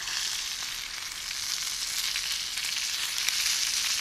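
Fish cutlets sizzling as they fry over a campfire: a steady frying hiss with a few faint ticks.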